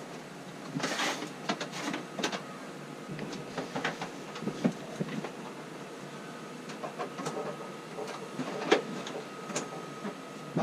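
Irregular plastic clicks, knocks and rustling as a high-pressure hose is fitted to a Karcher pressure washer by hand.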